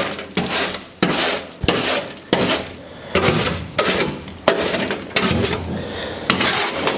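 Repeated scraping and rustling strokes with light clatter, roughly one every half second to a second, as debris is brushed off a car's bare metal floor pan.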